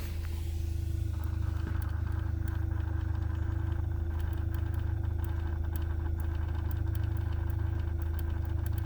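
A 2014 Hyundai Sonata 2.0T with its turbocharged four-cylinder running, heard from inside the car: a steady low hum, with a steady higher tone and faint, irregular ticking over it. This is the odd sound from the dash that the owner cannot explain.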